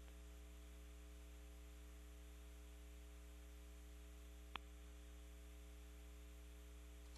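Near silence: a steady electrical hum on the audio feed, with a single short click about four and a half seconds in.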